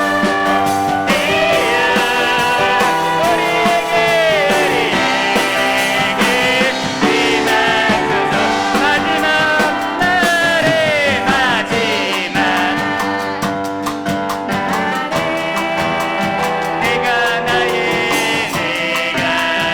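A church praise team singing a worship song with lead and backing vocals over piano and a drum kit.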